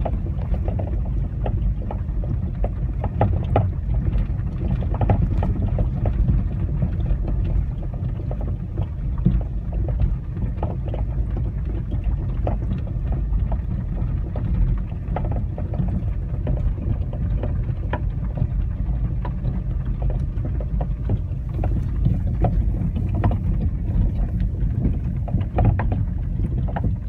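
First-generation Citroën C4 front suspension knocking irregularly over a steady low rumble of the moving car. The knock comes from a worn upper strut mount bearing whose rubber has torn, leaving the bushing loose.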